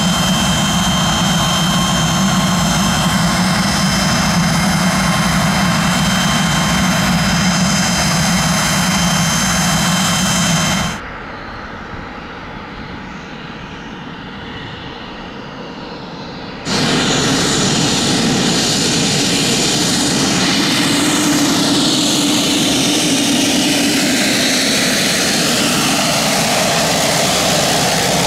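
Pilatus PC-24 business jet's Williams FJ44 turbofan engines running at idle on the ground: a steady hum with several high whining tones. About eleven seconds in it cuts to a quieter Pilatus PC-12 single-engine turboprop taxiing. A few seconds later comes a louder PC-12 taxiing close by, its whine falling in pitch as it passes.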